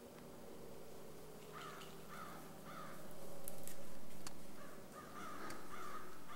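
Outdoor bird calls: three short harsh calls in quick succession, then a quicker run of them near the end, over a faint steady low hum.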